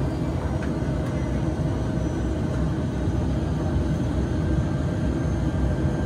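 ATR 72 turboprop engine and propeller running steadily, heard from inside the cabin as an even drone.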